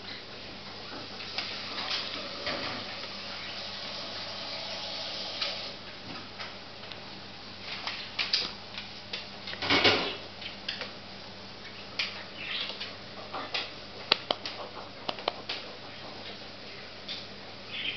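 Scattered light clicks and taps, with a louder rustling scrape about ten seconds in.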